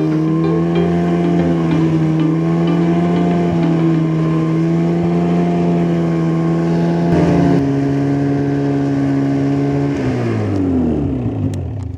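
Snowmobile engine running loud and steady at a constant throttle, then winding down in pitch and fading over the last two seconds.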